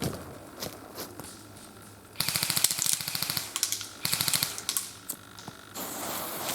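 Airsoft gun firing two rapid full-auto bursts of about a second each, a second or so apart. A short rushing noise follows near the end.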